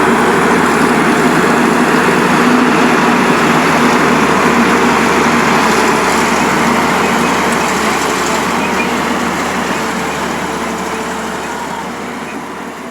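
Heavy diesel engine running steadily under load, fading out over the last few seconds.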